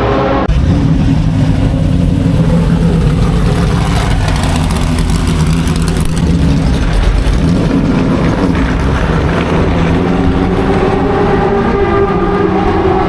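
Racing car engines running loudly, their pitch shifting up and down as they rev. There is an abrupt change about half a second in.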